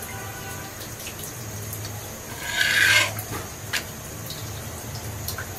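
Quiet kitchen noise while a roti cooks on a dry griddle: a low steady hum with a few faint ticks, and one brief rubbing, rasping scrape about two and a half seconds in.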